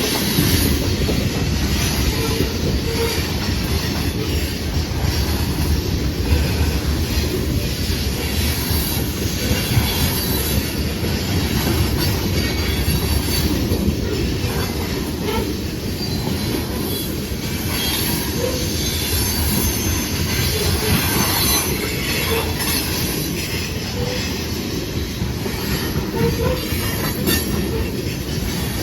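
Loaded freight train of grain cars rolling past slowly: a steady rumble of steel wheels on the rails with some faint wheel squeal.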